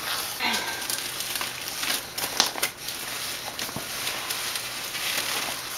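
Brown kraft-paper box liner rustling and crinkling as hands push it aside and reach into a cardboard produce box, with a few sharp crackles.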